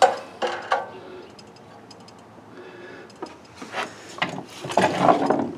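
Hand work on the Cub Cadet's ignition: a few sharp clicks in the first second, then scraping and rubbing for about the last two seconds.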